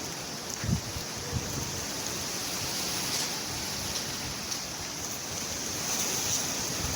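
Steady rushing noise of hurricane wind and rain, with two short low thumps about a second in.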